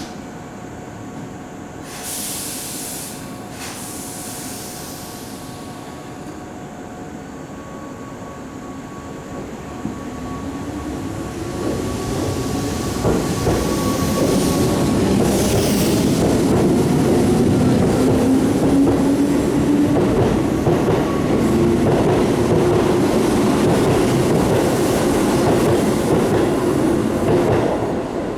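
Keihan 2200 series electric train pulling out of a station. A hiss of air comes about two seconds in. From about ten seconds the traction motors start a whine that rises in pitch as the train speeds up, and the sound grows louder with wheels clattering over the rails as the cars pass.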